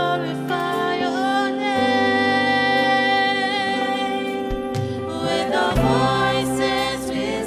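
Youth choir singing a gospel song with instrumental accompaniment, holding long notes over a bass line.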